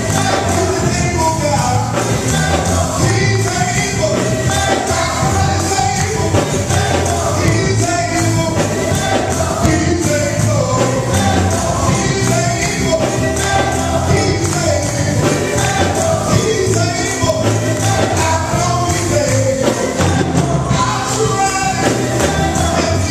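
Church choir singing gospel praise music over instrumental accompaniment, with percussion keeping a steady beat.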